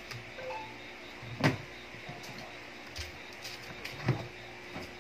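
A few knocks and scuffs in a black plastic bin lined with cardboard where a doe rabbit is nesting after giving birth, the loudest about one and a half seconds in, over a low steady hum.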